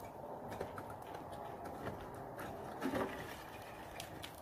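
Faint, irregular knocks of ice axes and crampons striking a frozen icefall as a climber swings and kicks into the ice, with a louder knock about three seconds in.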